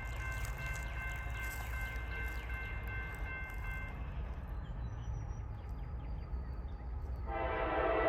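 Low steady rumble with a high, bell-like ringing that stops about four seconds in; about seven seconds in, a locomotive air horn starts sounding, loud and held, with several notes together.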